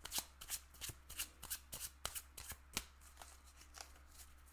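A small oracle deck printed on playing-card stock being shuffled by hand: quick card strokes, about four a second, that thin out and fade after about three seconds.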